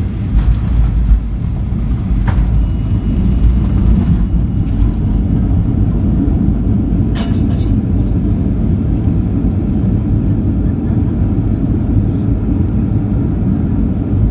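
Cabin noise of an airliner on its landing roll: a loud, steady rumble of wheels on the runway and engines, heaviest in the first few seconds. Two short clicks stand out, about two and seven seconds in.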